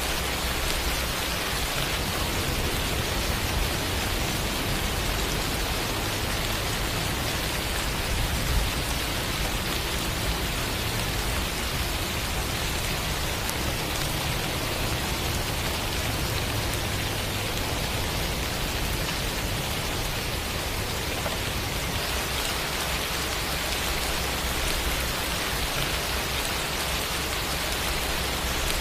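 Steady rain falling: an even, unbroken hiss of drops with a low rumble underneath.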